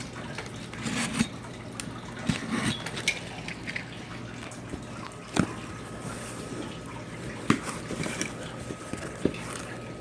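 Opening a cardboard shipping box and handling the packing inside: irregular rustles, crinkles and several sharp clicks and knocks, the loudest about five and a half and seven and a half seconds in.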